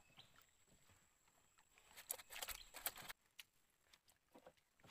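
Near silence, broken about two seconds in by a patter of rustling clicks lasting about a second, with a few faint ticks near the end.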